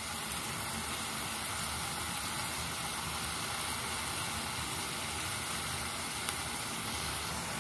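Thin beef strips sizzling steadily in a pan as they cook in their own juices.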